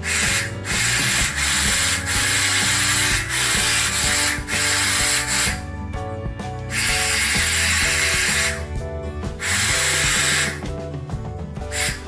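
Clairol hand-held hair dryer blowing, a steady loud rushing hiss that breaks off sharply several times and comes back, over background music.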